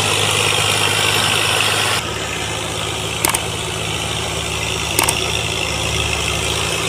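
Diesel engines of a Fiat 640 and a Massey Ferguson 240 tractor running steadily while hauling a loaded sugarcane trolley. The sound shifts abruptly about two seconds in, and two sharp clicks come about three and five seconds in.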